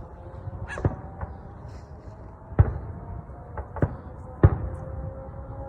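Aerial fireworks bursting at a distance: about six separate bangs at uneven spacing, two of them louder than the rest, over a low background rumble.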